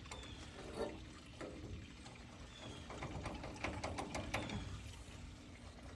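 Faint metallic clicks and taps of a hand wrench being worked on a tight fastener. The clicks come in a short cluster a little past the middle.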